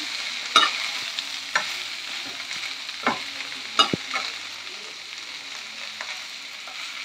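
A spatula stirring drumstick (moringa) leaves in a non-stick pan, with a few sharp knocks and scrapes against the pan (about 0.6, 1.6, 3 and 4 seconds in) over a steady sizzle as the leaves wilt with sprinkles of salted water.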